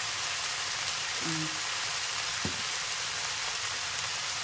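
Water spinach stalks with potato and eggplant pieces sizzling steadily in hot oil in a steel kadai as a metal spatula turns them, with a single light knock about two and a half seconds in.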